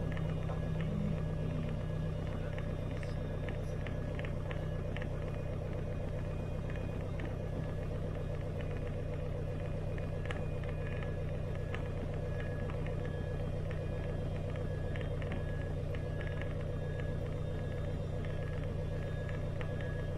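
Robin DR400 light aircraft's piston engine running steadily at low taxi power, heard from inside the cockpit, with short high squeaks now and then over the drone.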